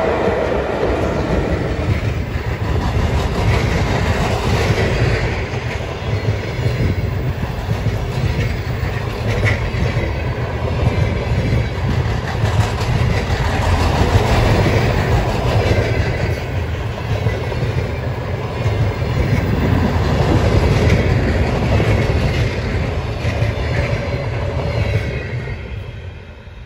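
Passenger train pulled by a ChS7 electric locomotive passing close by at speed: a steady rumble of wheels on the rails that swells and eases as the coaches go by. It fades away near the end as the last coach passes.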